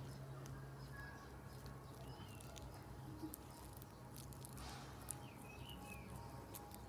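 Slime being kneaded and pulled by hand, giving faint sticky clicks and small squelches. It is hard slime softened in hot water and worked until it stops sticking.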